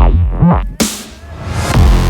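Electronic dance music of the dubstep kind: a falling synth sweep and bass, a brief thinned-out break with a wobbling bass line, then the full beat coming back in near the end.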